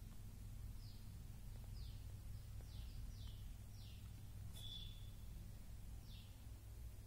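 Faint bird chirps: short, falling notes repeated every second or so, with one brief higher whistle about four and a half seconds in, over a steady low hum.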